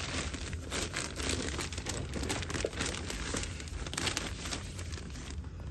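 Plastic bag crinkling and rustling as hands rummage through it, a dense run of irregular crackles that eases off near the end.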